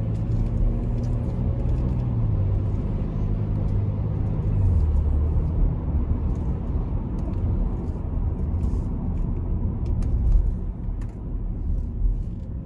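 Chevy Traverse heard from inside the cabin while driving: steady engine and road noise, the engine note dropping in steps about two and four and a half seconds in.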